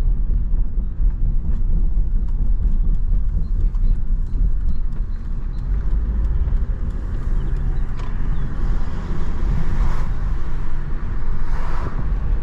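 Car engine and road noise heard from inside the cabin of a Volvo S60 while driving: a steady low rumble, with a faint regular ticking in the first half. A hiss of tyres and wind grows in the second half, swelling a few times near the end.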